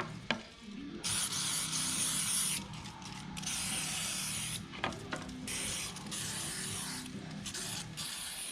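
Aerosol can of cleaner spraying into an electric grinder in several hissing bursts of about a second or so each, with short breaks between them.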